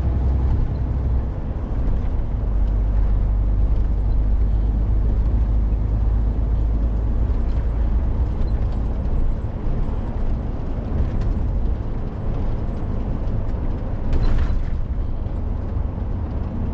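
Steady deep rumble of an HGV lorry's engine and road noise, heard from inside the cab while driving, with a brief louder noise near the end.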